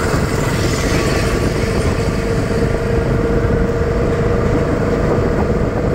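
Auto-rickshaw engine running steadily during a ride, a constant drone with a steady hum.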